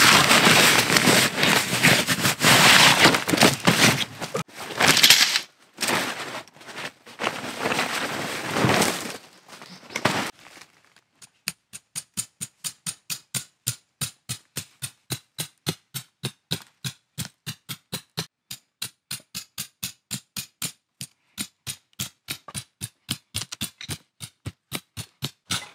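Loud rustling and crumpling of tent canvas being pulled out of its bag and spread on the ground. After about ten seconds it gives way to a hammer tapping a tent peg into the ground, in a fast, even run of about four strikes a second.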